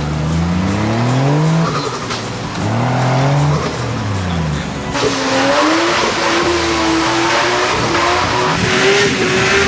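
Off-road 4x4 engine revving up and down several times, then held at high revs with a steady whine and a loud hiss from about halfway through, as it works hard.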